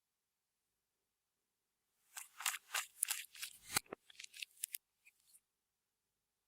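Clear slime being squished and worked by hand, giving a quick run of sharp crackling pops for about three seconds, starting about two seconds in.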